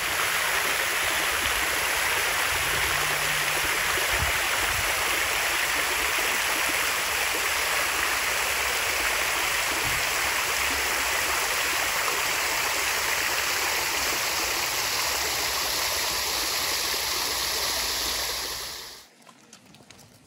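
Park fountain's water jet splashing down onto its basin: a steady rush of falling water, which cuts off suddenly near the end.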